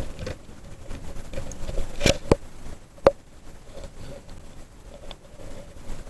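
A few sharp clicks or taps over a quiet background: two close together about two seconds in, and a third about a second later.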